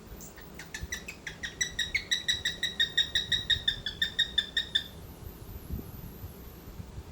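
Cockatiel giving a rapid run of short, clipped chirps, about six a second, for roughly four seconds.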